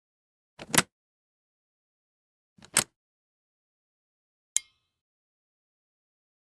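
Slide switch clicking three times, about two seconds apart. The first two are each a quick double click; the last is a single sharp click with a brief ring.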